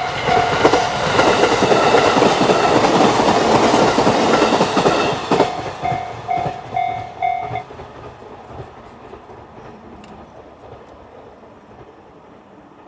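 JR standard electronic level-crossing bell ringing in evenly repeated dings, drowned out for a few seconds by an E531 series electric train rushing over the crossing with clicking wheels on the rail joints. The bell stops about seven and a half seconds in and the train's sound fades away.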